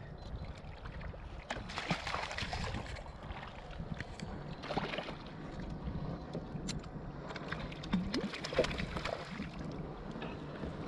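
Water lapping and sloshing against a kayak's hull and outrigger float, surging a couple of times, with low wind rumble on the microphone and scattered small clicks of the rod and reel being handled.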